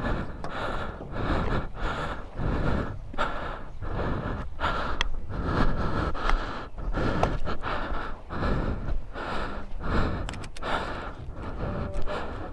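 A person breathing hard and rhythmically with exertion, short breaths repeating under a second apart. A few sharp clicks come near the end.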